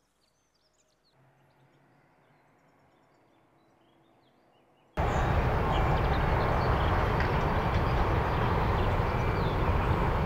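Faint bird chirps and a low hum, then, about halfway through, a loud, steady outdoor rushing noise that starts abruptly and cuts off sharply at the end.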